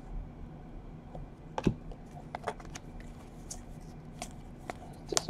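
Trading cards being handled and slid against one another: scattered soft clicks and snaps, a sharper one about a second and a half in and another near the end.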